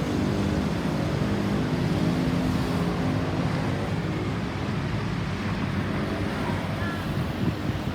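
Road vehicle running with a steady low engine hum over road and wind noise; the hum is strongest in the first few seconds, then eases. No siren is sounding.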